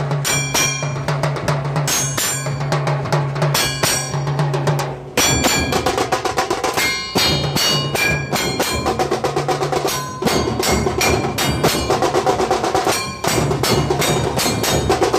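Dhol tasha ensemble playing: large barrel-shaped dhol drums and small tasha drums beaten with sticks in a fast, dense rhythm, breaking off briefly about 5, 10 and 13 seconds in before starting again.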